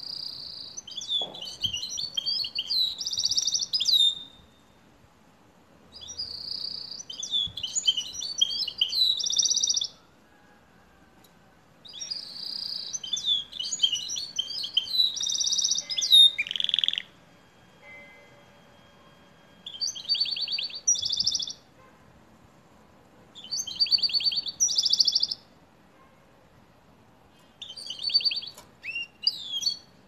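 Canary singing a goldfinch-like song: six phrases of rapid, high twittering trills, each one to four seconds long, with pauses of about two seconds between them.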